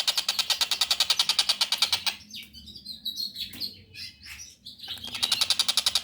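Young tengkek buto (collared kingfisher) calling: a run of sharp chirps, each sliding down in pitch, lasting about three seconds. Before and after the chirps, a fast, even pulsing of about ten beats a second.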